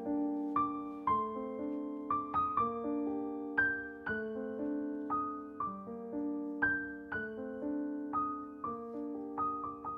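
Background music: a soft piano melody of struck notes that ring and fade, a few notes a second.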